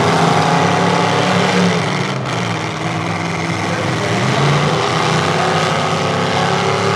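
Engines of several full-size demolition derby pickup trucks running and revving, rising and falling in pitch.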